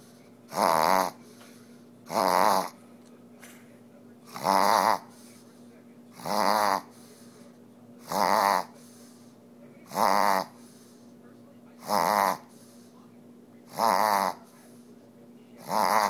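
Pug reverse sneezing: repeated loud pulls of air through the nose, about one every two seconds, each lasting about half a second. It comes from post-nasal drip and sets in after every bath.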